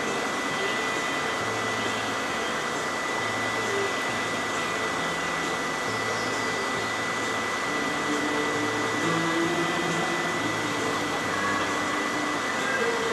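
A steady rushing noise with a thin, constant high whistle, and faint low hums that come and go underneath.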